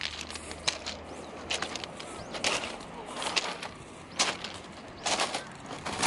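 Footsteps on a beach of smooth, rounded black pebbles: about six steps, a little under one a second, each a sharp clatter and crunch of stones shifting underfoot.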